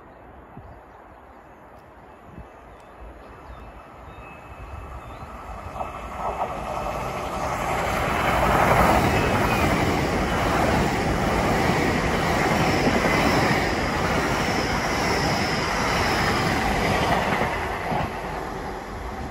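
Great Western Railway Class 800 passenger train approaching and running past at speed. Its noise builds over several seconds, holds loud for around ten seconds with a faint high whine partway through, then begins to fade as the train moves away.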